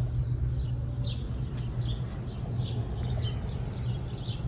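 Air-conditioning condensing unit running with a steady low hum, while birds chirp repeatedly over it, several short falling chirps a second.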